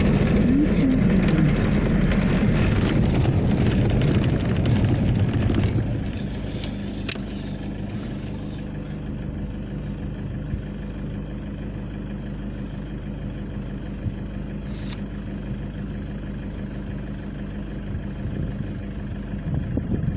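Engine and tyre noise of a vehicle driving on a sand track, heard from inside its cabin. It is louder for about the first six seconds, then settles to a quieter, steady hum with a couple of light clicks.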